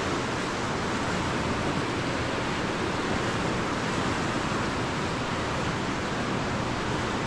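Steady rushing of fast river water, at high flow with the dam's generators running.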